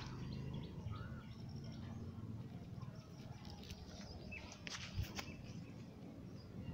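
Leaves and dry stems rustling as a hand pushes through low weeds, with a few sharp crackles about five seconds in. A few short bird chirps sound in the background.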